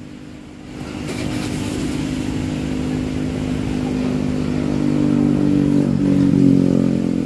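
Motorcycle engine running close by, coming in about a second in and growing steadily louder over several seconds with a steady engine note.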